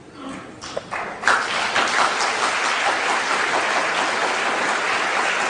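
Large audience applauding: a few scattered claps at first, swelling into full, steady applause about a second in.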